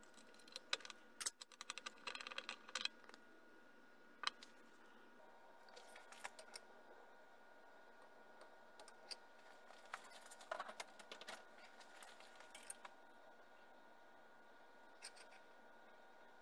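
Small metal hand tools and parts being handled: scattered light clicks and taps, a quick cluster in the first few seconds and another around the middle, over a faint steady hum.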